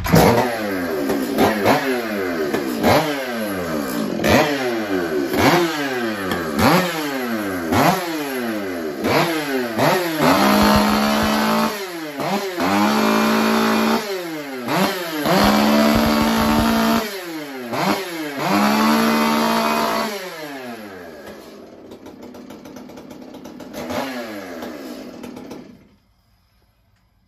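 Freshly ported Stihl MS-461 two-stroke chainsaw with a bark-box muffler being revved: about eight quick throttle blips roughly a second apart, then held wide open four times for a second or two each. It drops back to a quieter idle and shuts off near the end.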